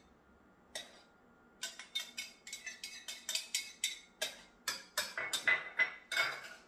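A utensil knocking against a saucepan in quick, irregular strokes, about three or four a second, as butter is stirred into hot crème pâtissière just off the heat.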